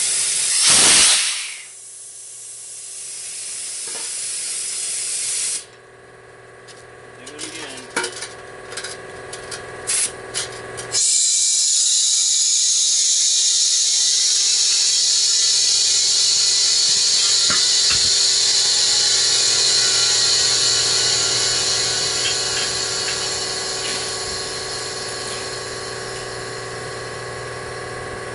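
Compressed air rushing from a homemade bead-blast tank into a truck tire to seat the bead. There is a loud blast about a second in, then a hiss that cuts off, a few clicks and knocks, and then a long steady hiss of air filling the tire that slowly fades.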